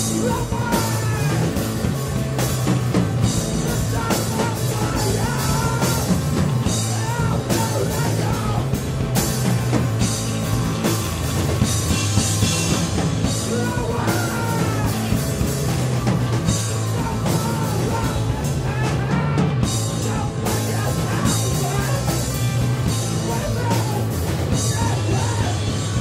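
Live rock band playing loud and fast: a drum kit with crashing cymbals under singing and yelled vocals.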